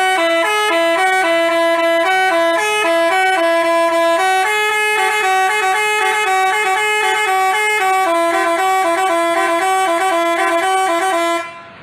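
Basuri telolet bus horn playing a tune: a fast string of loud multi-tone horn notes stepping up and down, which cuts off suddenly near the end.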